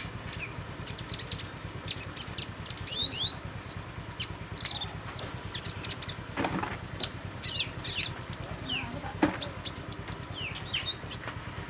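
Small songbirds chirping: a quick run of sharp, high chirps and short falling twitters. Two brief low rustles come near the middle.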